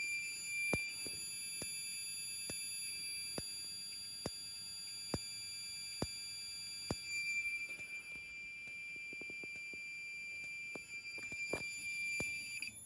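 Edwards Integrity speaker strobe, its speaker removed, flashing about once a second with a sharp click at each flash over a steady high-pitched whine; very loud. It all cuts off suddenly at the very end.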